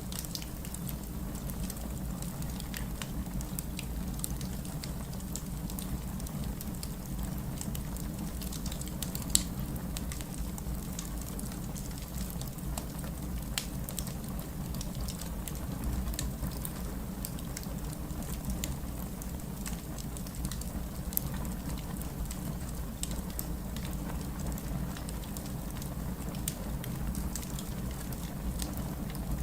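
Fireplace fire burning with a steady low rumble and frequent small crackles, and a louder pop about nine seconds in and again about twenty-one seconds in.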